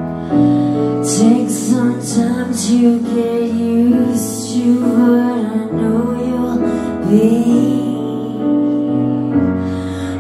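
Live band music from a slow song: a woman singing long, drawn-out notes over sustained keyboard chords and bass, with a few short high hits.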